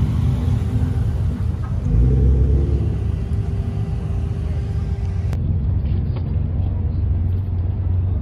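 Car engine running with a low, steady rumble. It grows louder about two seconds in and changes abruptly about five seconds in.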